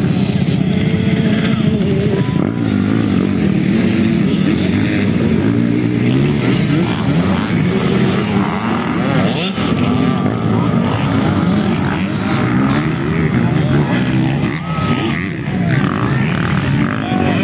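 Several motocross bikes racing on a dirt track, their engines revving up and down with the throttle. The engine noise is loud and continuous, with pitches rising and falling as the riders accelerate and shift.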